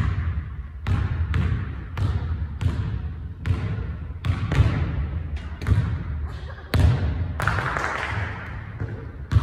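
A basketball bouncing repeatedly on a hardwood gym floor, a sharp thud every half second to a second, each echoing through the large gym.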